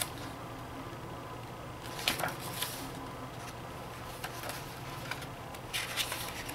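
Pages of a thick paper photo book being turned by hand: a papery swish about two seconds in and another near the end, with a few light ticks of paper and fingers between.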